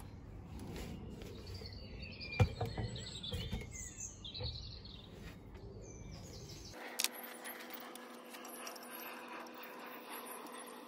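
Birds chirping in the background, with a few sharp knocks from metal parts being handled, the loudest about two and a half seconds in. About seven seconds in the sound changes abruptly to a faint steady hum with a single click.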